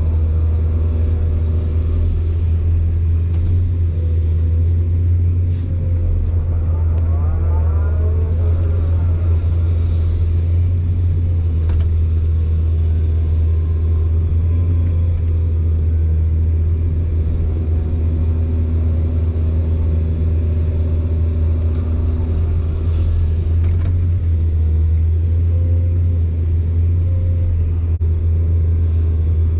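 Excavator's diesel engine idling steadily, a constant low drone with no revving.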